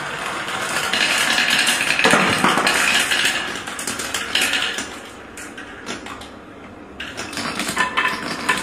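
Glass marbles rolling and clicking against each other along marble-run track, first plastic and then wooden, with a steady rattle broken by sharp clicks. The rattle eases off partway through and the clicks pick up again near the end.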